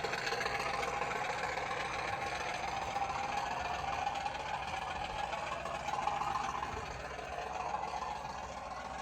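Model Class 50 diesel locomotive's sound decoder playing its engine sound through the model's small speaker, running steadily and fading slightly near the end.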